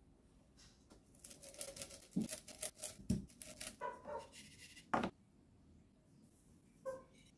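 Toasted sesame seeds being crushed in a wooden bowl: about four seconds of crunching and scraping with several sharper knocks against the wood, then one short knock with a slight ring near the end.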